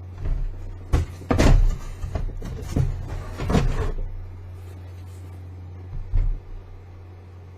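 Sneakers being handled: a run of knocks and scrapes in the first four seconds and two more about six seconds in, over a steady low hum.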